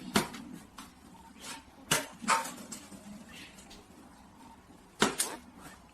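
Three sharp knocks, near the start, about two seconds in and about five seconds in, with fainter clicks between them.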